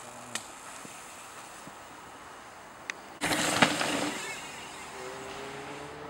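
A mountain bike rolling fast past close by on loose shale, its tyres crunching and skidding over rock for about a second, about three seconds in, with one sharp knock in the middle. A faint hum slowly rises in pitch afterwards.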